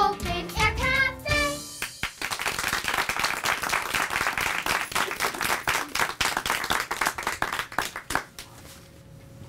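A song sung by children over an accompaniment ends about two seconds in, and the audience breaks into applause that goes on for several seconds, thinning out near the end.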